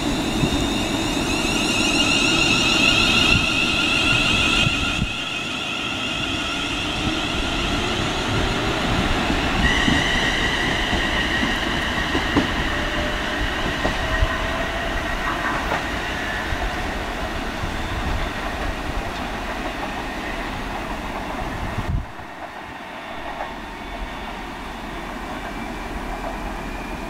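Class 380 (Siemens Desiro) electric multiple unit pulling away from the platform, its traction motors whining in several tones that slowly rise in pitch as it gathers speed, over wheel and rail noise. The sound drops abruptly twice, about five seconds in and near the end.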